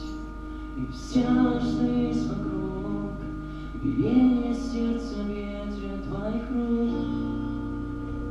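Instrumental intro of a rock song: held chords with a few sliding notes and soft high accents, before the vocals come in.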